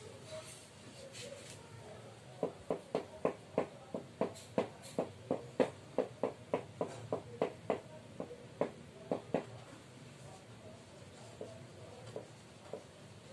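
Felt-tip marker tapping against a whiteboard: a run of about two dozen quick, sharp taps, roughly four a second, then stopping, with a few fainter taps near the end.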